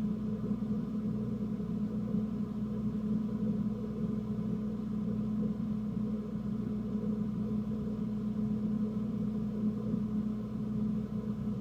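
A steady, low mechanical hum.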